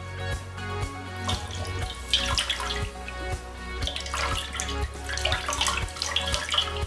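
Background music with a steady beat over a thin stream of tap water splashing onto a beeswax-waxed leather glove.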